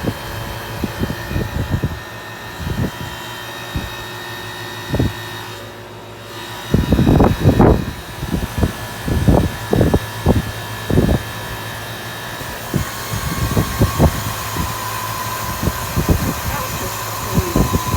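Aging 2000 Payne teardrop heat pump outdoor unit running with a steady hum and fan rush, broken by irregular loud thumps; it sounds terrible, and the owner takes it to be near failure. About two-thirds of the way through, a higher steady whine and more hiss join in.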